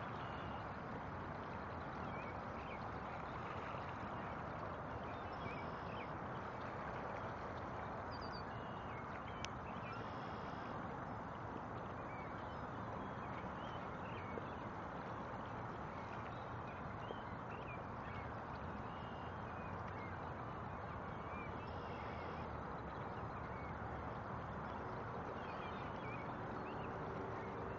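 Lakeshore ambience: a steady wash of wind and lapping lake water, with birds calling briefly now and then.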